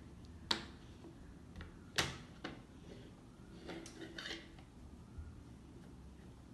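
Sharp plastic clicks and knocks as a makeup brush and a plastic powder compact are picked up from a table and the compact is opened: two clear clicks about half a second and two seconds in, the second the loudest, then a brief soft scraping just before four seconds in.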